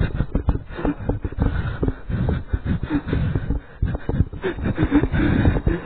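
A person's close, ragged breathing and mouth noises right at the microphone, broken by irregular knocks and rustles, with brief low voiced sounds now and then.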